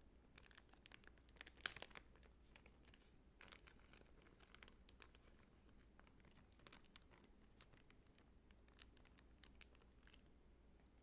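Faint crinkling and light scattered clicks of small things being handled by hand, busiest and loudest about two seconds in.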